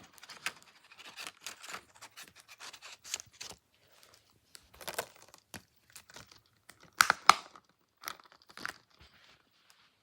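Plastic Blu-ray case and its packaging being handled: scattered crinkling, rustling and small clicks, with two sharp, loud clicks about seven seconds in.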